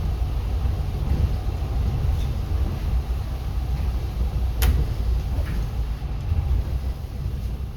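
City bus in motion, heard from aboard: a steady low rumble of engine and road noise, with one sharp click about halfway through.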